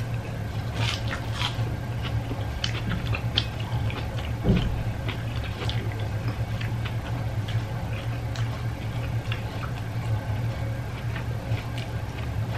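Close-up eating sounds of two people eating with their hands: scattered small wet clicks and smacks of chewing, over a steady low hum. One soft thump about four and a half seconds in.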